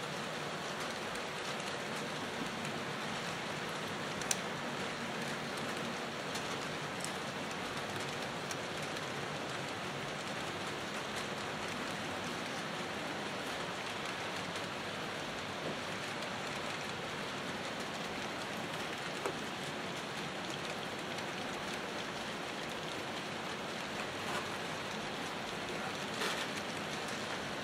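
HO scale model trains rolling on the track layout: a steady hiss of small wheels on rail, with a few faint clicks.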